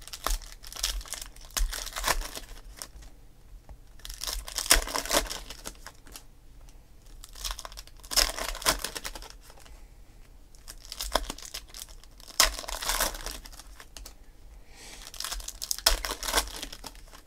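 Foil wrappers of Donruss Optic football card packs being torn open and crinkled by hand, in repeated bursts a couple of seconds apart.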